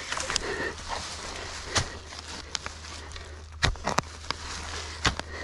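Short-handled shovel digging into leaf-covered forest soil, with several sharp knocks of the blade striking the ground.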